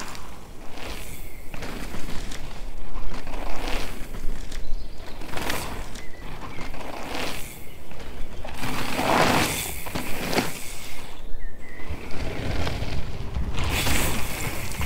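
Mountain bike tyres rolling and skidding over a dirt track with wind rushing past, in swells that rise and fade every second or two as the bike carves through berms.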